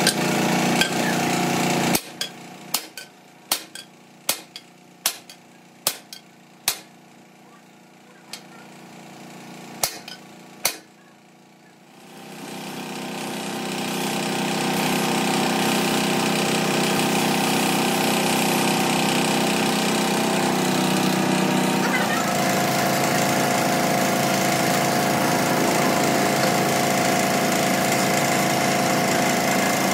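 A workshop machine runs steadily, then stops about two seconds in. About ten sharp knocks follow, under a second apart. The machine starts again at about twelve seconds, builds over a few seconds to a steady run, and changes tone about ten seconds later.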